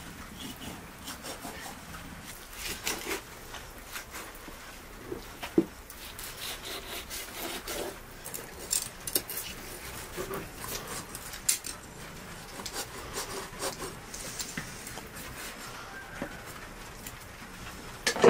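Kitchen knife sawing and slicing through a raw lamb joint, the blade rubbing and scraping along the meat and bone in short irregular strokes, with a few sharp knocks, the loudest near the end.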